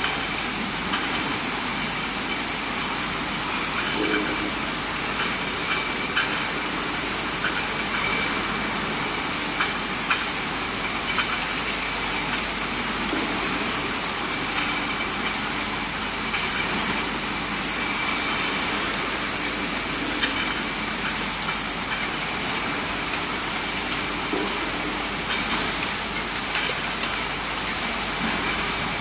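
Industrial bottle decapping and washing machinery running: a steady hiss with a constant high whine, broken by scattered short clicks and knocks.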